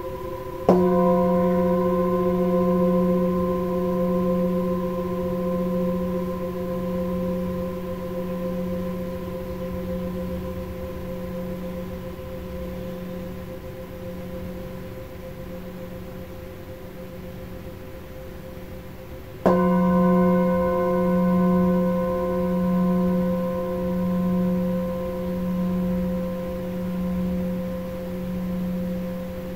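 A Himalayan singing bowl struck twice with a padded mallet, about a second in and again about two-thirds of the way through. Each strike rings on long as a deep, pulsing hum with several higher overtones; the bowl is played for the note F.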